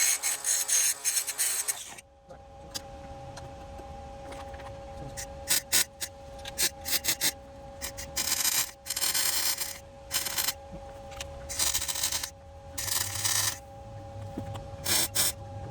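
Welder tacking an exhaust hanger in place: a run of short bursts of crackling arc, about eight of them lasting under a second each, with a steady hum underneath.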